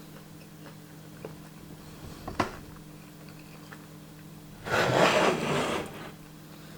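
Soft clicks and ticks of chewing, then, about five seconds in, a loud rough rubbing or rasping noise lasting just over a second.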